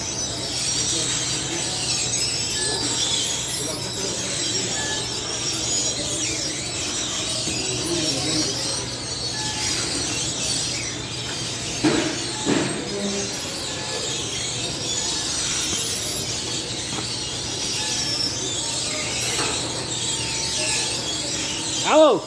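Steady hiss and hum of commercial bakery machinery, with two sharp metal clanks about twelve seconds in and a short rising-and-falling tone near the end.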